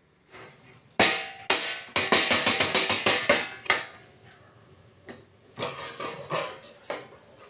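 Metal ladle clanking against a steel lid and an iron wok: a quick run of ringing strikes, then a few quieter knocks near the end.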